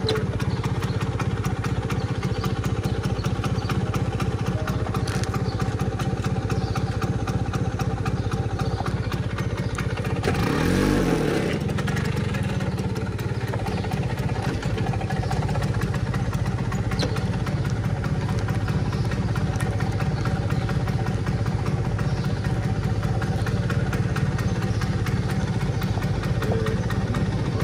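Vespa scooter running steadily while being ridden on the road, with a brief louder burst of noise about ten seconds in.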